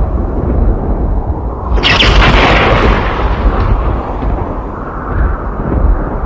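Thunder rumbling low and continuously, with a sharp close thunderclap crack about two seconds in that rolls off back into the rumble.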